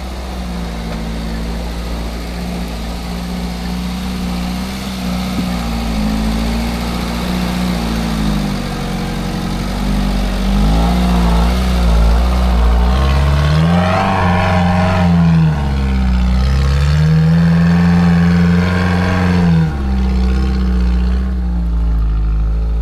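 Off-road 4x4's engine working at low speed over rough ground, the revs rising and falling repeatedly. It is pushed hardest and loudest in the middle, then eases off near the end.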